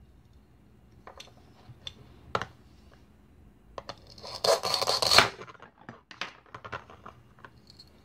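Plastic toy food handled on a plastic cutting board: a few light clicks, then a rasping velcro rip lasting about a second, about four and a half seconds in, as a toy knife cuts the velcro-joined toy corn cob in two, followed by several small plastic clicks and taps.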